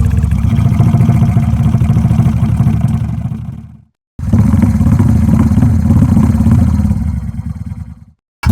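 Car engine running with a low, even, rapid pulsing. It fades out just before four seconds in, comes back abruptly after a brief silence, and fades out again near the end.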